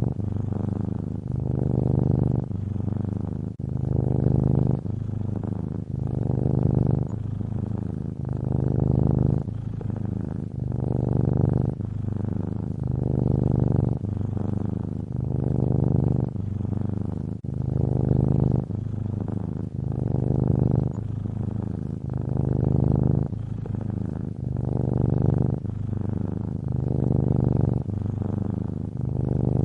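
A cat snoring: a continuous low rumble that swells and eases with each breath, about once every two seconds.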